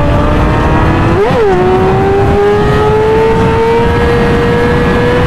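A high-revving engine accelerating hard, with heavy wind rush. About a second in the revs flare and drop back with a gear change, then the pitch climbs steadily again.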